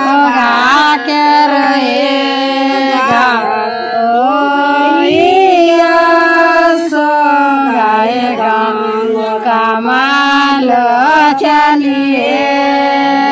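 Women singing a bhajan, a Hindu devotional song addressed to the river Ganges, in long held notes that glide up and down in pitch.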